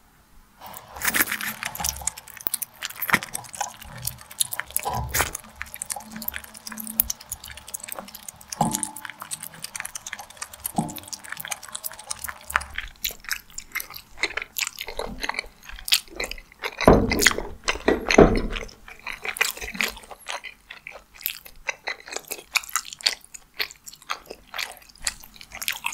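Close-miked eating sounds: chewy tteokbokki rice cakes in thick sauce being chewed, with many wet mouth clicks and smacks, and chopsticks tapping and scraping on a ceramic plate.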